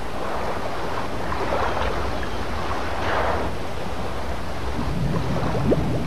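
Water moving and lapping in an orca pool, with a steady low hum under it and a swell of rushing water noise about three seconds in.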